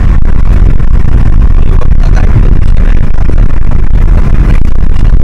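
Steady, loud rumble of a moving Suzuki car heard from inside the cabin: road and engine noise while driving on the highway.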